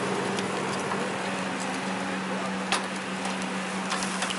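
Street-food charcoal grill ambience: a steady hiss over a constant low hum, with a few sharp clicks, one about two-thirds of the way in and two close together near the end.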